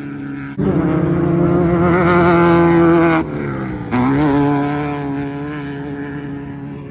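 Class 1600 off-road race car's air-cooled Volkswagen flat-four running at full throttle, suddenly loud about half a second in. The revs drop sharply near the middle as the throttle lifts, then climb again, and the note slowly fades.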